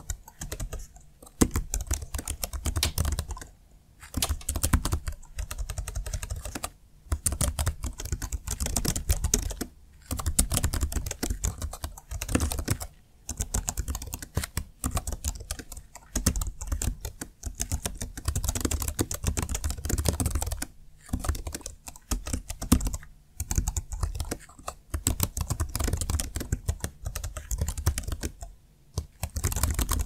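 Fast touch-typing on a Jelly Comb KE68 ergonomic keyboard's membrane keys: a dense run of key clicks in bursts, with brief pauses between them.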